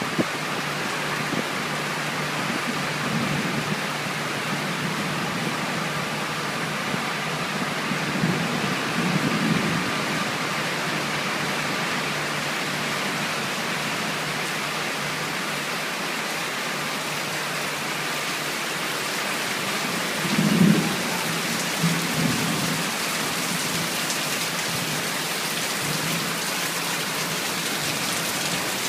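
Heavy rain pouring onto a corrugated metal shed roof and streaming off its edges, a dense, steady hiss. Low rumbles swell up about a third of the way in and more strongly about two-thirds in.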